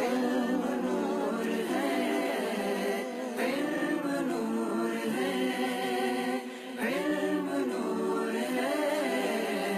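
A cappella Urdu song: voices holding long, wavering notes with no instruments.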